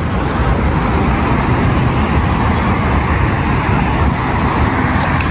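Steady road traffic noise, an even rush of passing cars with no single vehicle standing out.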